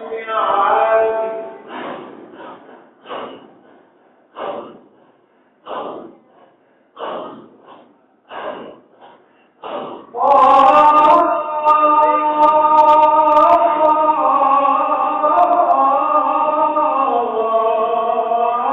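Group dhikr chanting of a Shadhili hadra. First come short, separate chanted breaths, roughly one a second. About ten seconds in, loud group singing starts, with long held notes that step up and down in pitch.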